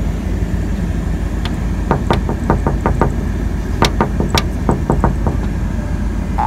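A steady low rumble, with a run of about a dozen small sharp clicks starting about a second and a half in and stopping about five seconds in.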